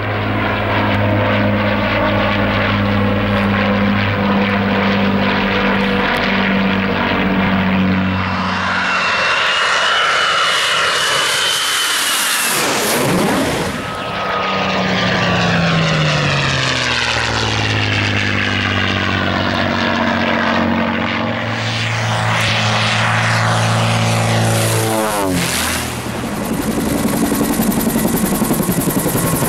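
Avro Lancaster's four Rolls-Royce Merlin piston engines running steadily in a low pass, the pitch dropping as it goes by about 12 seconds in. Then a P-51 Mustang's single Merlin V-12 runs steady and falls in pitch as it passes about 25 seconds in. Near the end comes the rhythmic blade beat of a Bell UH-1 Huey's two-blade rotor overhead.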